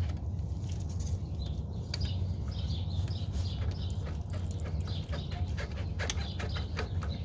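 Small birds chirping over a steady low rumble, with a few sharp clicks about six seconds in.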